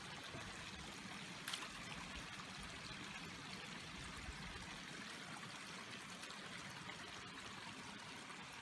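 Small rain-swollen stream of runoff water running steadily, an even rushing flow. A faint tap sounds about a second and a half in.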